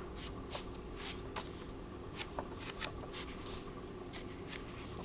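Pages of an old hardback book being turned by hand: a faint run of irregular paper flicks and rustles.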